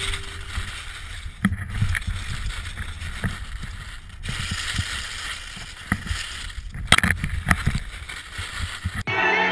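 Skis hissing and scraping over snow at speed, with wind buffeting an action camera's microphone and a few sharp knocks from bumps in the run. Music comes in near the end.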